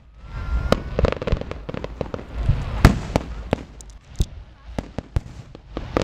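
Fireworks display: aerial shells bursting in a quick series of sharp bangs over a low rumble, the loudest bang a little under three seconds in.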